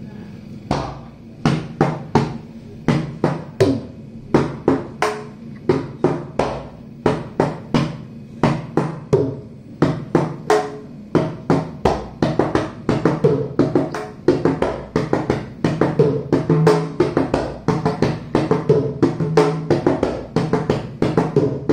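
Mridangam, the South Indian double-headed barrel drum, played with both hands through the second lesson's stroke pattern (tha ki ta, ti ki ta, tum ki ta, nam ki ta). The strokes come at an even pace at first, then much faster from about halfway, as the lesson moves up a speed.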